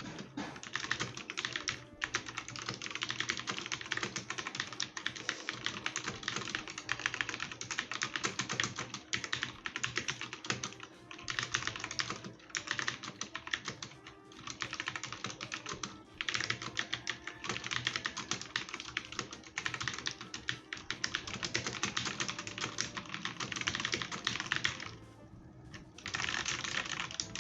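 Fast typing on a Gigaware Mnemonix mechanical keyboard with Outemu switches: a dense run of key clicks, with short pauses about 2, 14 and 16 seconds in and a longer pause near the end.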